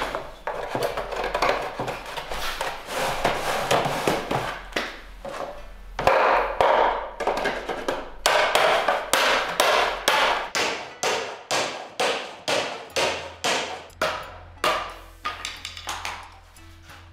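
A wooden mallet drives a bamboo hoop down onto the staved wooden shell of a barrel drum (okedaiko). The blows come in a quick, irregular flurry at first, then settle into steady strokes about two a second.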